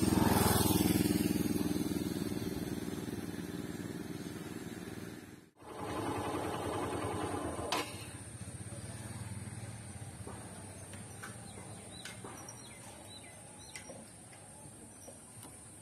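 A motorcycle engine passing and fading away over the first few seconds. After it come quiet outdoor surroundings with a faint, steady, high-pitched hum and a few small clicks.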